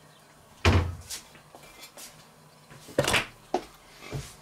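Kitchen cupboard door being opened and shut while a plate is fetched. There is one heavy knock with a low thud under a second in, then a few lighter knocks and clicks near the end.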